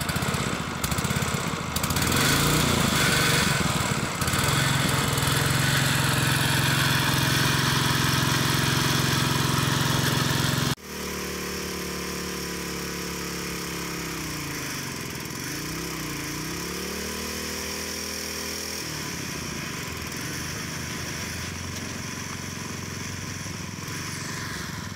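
Small petrol engine of a hydraulic power pack running steadily, driving a hydraulic weld trimmer on a freshly thermit-welded rail. About 11 seconds in the sound drops suddenly to a quieter level, and a few seconds later the engine note sags in pitch and recovers once as the pump takes load.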